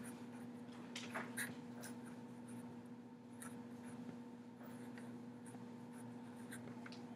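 Fine-point Sharpie marker writing on paper: faint, short strokes at irregular intervals, over a steady low hum.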